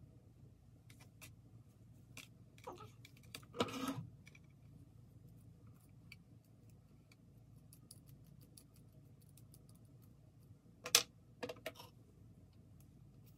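Faint small clicks and light rustling of hands and tweezers working a synthetic lace-front wig's hairline as it is plucked. There are two louder brief rustles, one about four seconds in and one about eleven seconds in.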